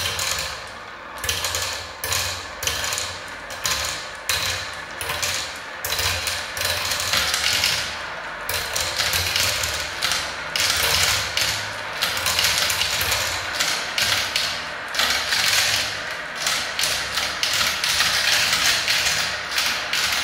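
Many small plastic balls rolling and clattering through a plastic building-block marble run: a dense, continuous rattle of clicks as they circle the transparent plastic funnel bowls and drop into the tubes.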